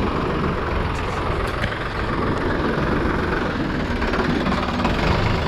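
Suzuki Gixxer 250 motorcycle's single-cylinder engine running steadily.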